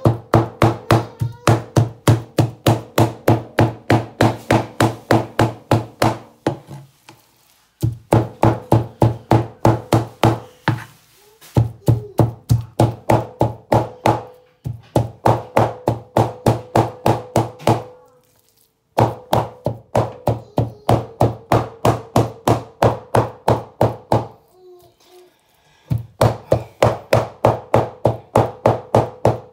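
Large kitchen knife rapidly chopping raw chicken into mince on a plastic cutting board: fast even strikes, about four to five a second, in runs of a few seconds broken by short pauses.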